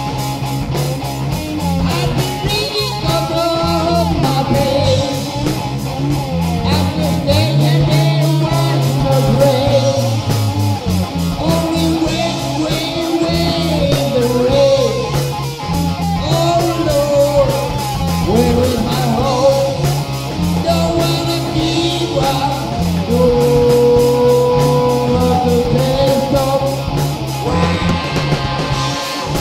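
Hard rock music on cigar box guitar: a heavy, repeating bass riff with a bending melody line above it.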